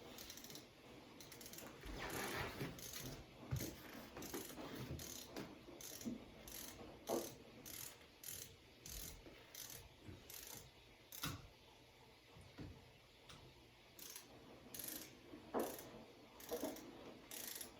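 Ratcheting screwdriver clicking in irregular short runs as a screw is tightened by hand, the pawl ticking on each back-stroke.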